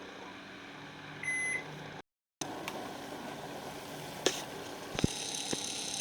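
A single short electronic appliance beep about a second in, over a low steady hum. After a brief cut, a few light clicks and knocks follow.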